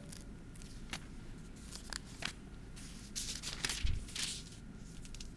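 Paper pages of a Bible rustling and crackling as they are leafed through at a lectern microphone, a few short rustles spread out, with a soft low thump about four seconds in.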